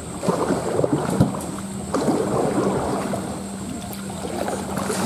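River water splashing and gurgling close to the microphone, an irregular stream of small splashes.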